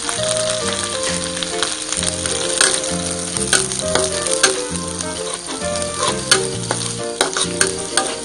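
Minced garlic sizzling in hot oil in a wok, stirred with a metal spatula that scrapes and clicks against the pan several times. Background music with steady low notes plays underneath.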